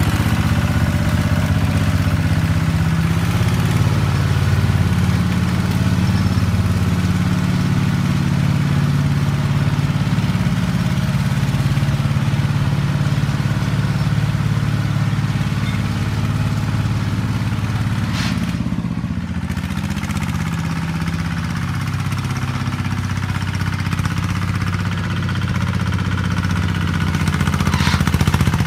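Small Newtech ride-on tractor's engine running steadily under load while its rear blade drags through loose soil, a little softer for a few seconds past the middle.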